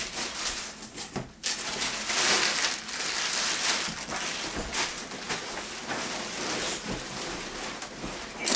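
Packing material in a cardboard shipping box being rustled, crumpled and pushed aside by hand as the box is unpacked. The noise rises sharply about a second and a half in and eases off toward the end.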